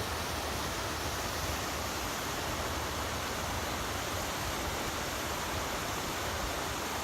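Steady rush of a waterfall tumbling over large boulders.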